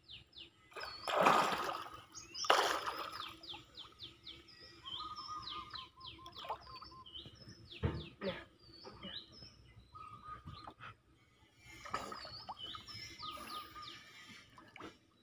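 Small birds chirping over and over with quick, high notes that drop in pitch. Two loud rushing noises come about a second and two and a half seconds in, and a short knock near the middle.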